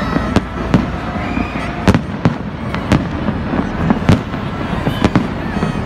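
Aerial fireworks going off overhead: sharp bangs at irregular intervals, about one or two a second, over continuous crackling.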